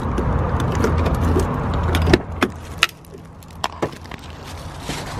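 Keys jangling as a key works a car's door lock, followed about two seconds in by several sharp clicks and knocks from the door latch and door as it is opened and the driver gets in. A low outdoor rumble runs underneath and drops away after the first click.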